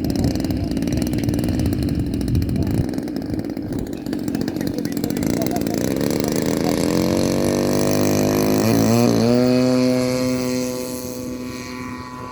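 Model aircraft glow engine of a 1.20-size RC Cessna 182 running rough and low, then throttled up with a rising pitch about six seconds in. It settles onto a steady high note and grows fainter near the end as the model moves away.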